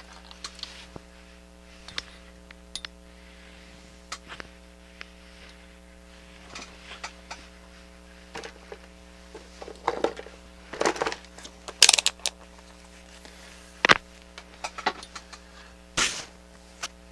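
Scattered clicks, taps and knocks of small plastic and metal parts being handled, with a cluster of louder knocks in the second half, over a steady electrical hum.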